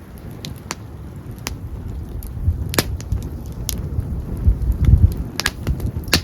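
Open wood campfire crackling, with sharp pops at irregular intervals, the strongest about three seconds in and near the end, over a low uneven rumble of wind.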